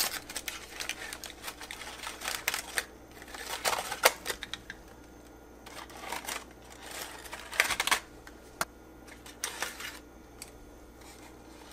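Aluminium foil crinkling and crackling as it is peeled off the tops of ceramic ramekins, in several irregular spells with short pauses between.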